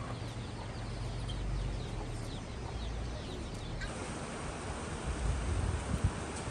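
Outdoor street ambience: small birds chirping in quick short falling calls over a low steady hum. About four seconds in the sound changes abruptly to wind rushing and buffeting the microphone in gusts.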